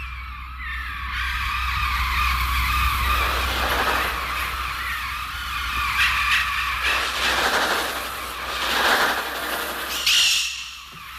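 Mixtur-Trautonium electronic bird sounds: a dense, wavering mass of synthetic bird cries that swells and ebbs, with a brief high warbling cry near the end, over a steady low hum.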